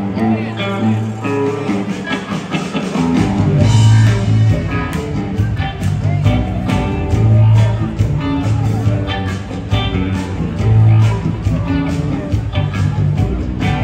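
A live jam band playing electric guitars, bass guitar and drums, with the bass coming in heavily about three seconds in.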